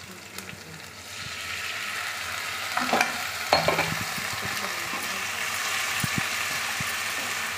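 Onions and ginger-garlic paste frying in hot oil in a kadhai: the sizzle swells about a second in as the paste goes in and then holds steady while a wooden spatula stirs it, with two short knocks around three seconds in.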